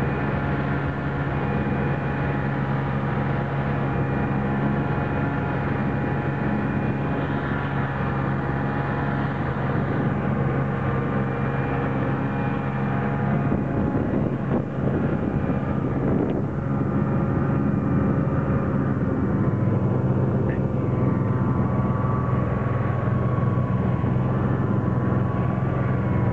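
Snowmobile engine running steadily while riding, heard up close. Its note drops a little and gets slightly louder about three-quarters of the way through.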